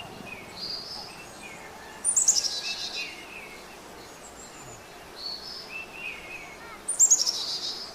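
Birds singing and chirping: two loud, high phrases of quickly repeated notes falling in pitch, about two seconds in and again about seven seconds in, with softer chirps from other birds in between.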